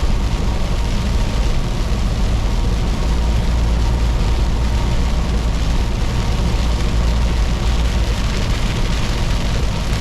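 Heavily loaded semi truck's diesel engine droning steadily at highway speed, with steady road and tyre noise over it.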